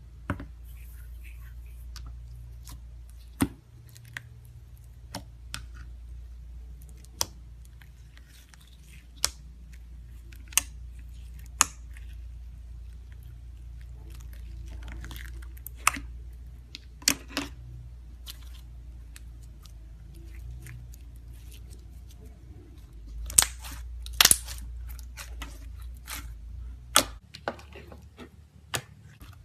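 Clear slime being pressed and played with, giving irregular sharp pops and clicks, with a steady low hum underneath that stops near the end.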